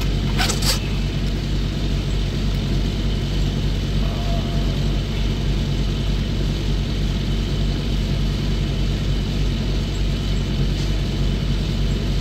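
Semi-truck diesel engine idling steadily, heard from inside the cab as a low, even rumble. Two short sharp clicks come about half a second in.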